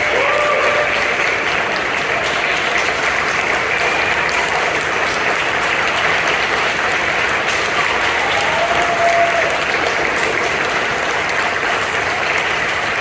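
Audience applauding steadily, with a couple of brief calls from the crowd.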